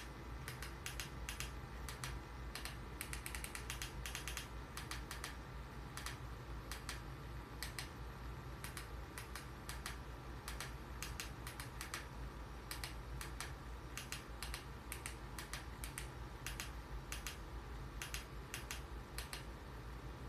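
Typing on a computer keyboard: irregular runs of key clicks, as when searching for a song, over a steady low hum.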